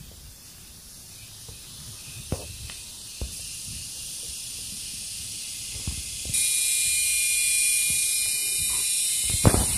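A steady high-pitched hiss that grows louder and jumps up sharply about six seconds in, with a few soft knocks scattered through it.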